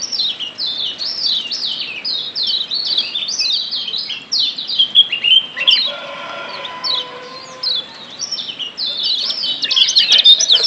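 Yellow Lombok white-eye (kecial kuning, a Zosterops) giving rapid series of high, sharply down-slurred 'ciak' chirps, about three a second. The chirps thin out for a few seconds past the middle and come thick again near the end.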